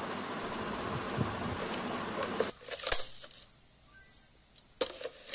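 Metal spoon stirring a thick milk mixture in a nonstick pan, with a few sharp knocks of the spoon against the pan. A steady hiss for the first two and a half seconds drops away suddenly.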